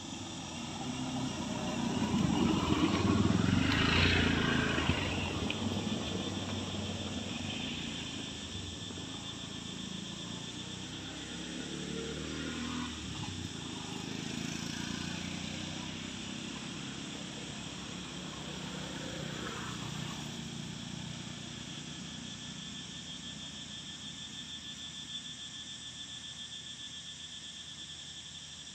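A steady, high insect drone runs throughout. Over it, a motor vehicle passes and swells loudest a few seconds in, with fainter passes about twelve and twenty seconds in.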